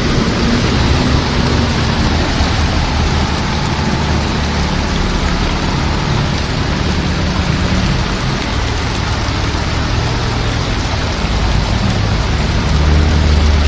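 Heavy rain falling steadily, with a low hum underneath that grows louder near the end.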